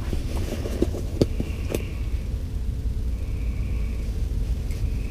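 A steady low rumble, with a few light clicks in the first two seconds as a fish is handled and unhooked.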